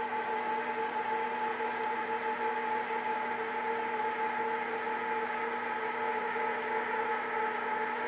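Steady machine hum and whir indoors, holding a few fixed pitches without change.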